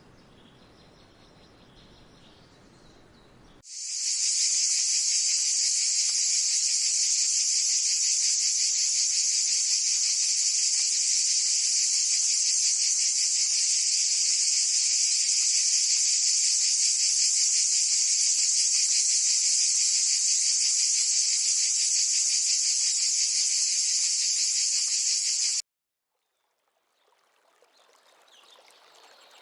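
Loud, steady insect buzzing: a dense, high, rapidly pulsing drone that starts about four seconds in and cuts off abruptly a few seconds before the end.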